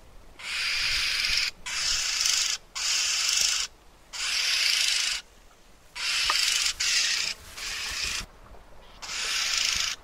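Red-billed oxpecker giving a series of harsh hissing calls, each about half a second to a second long, about eight in all with short gaps between them.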